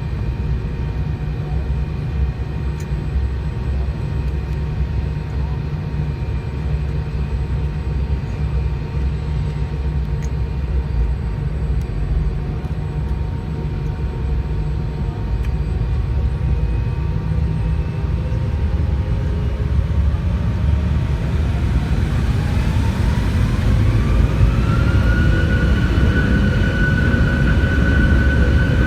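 Jet airliner engines heard from inside the cabin: a steady low rumble at first, then about twenty seconds in a whine climbs in pitch over a few seconds and levels off as the engines spool up to takeoff power.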